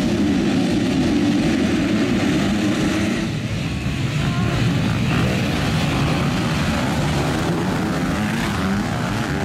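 A pack of motocross bikes revving together on the start line, then accelerating away as a mass of engines, the low revving band giving way to a spread-out engine din about three seconds in as the field charges into the first corner.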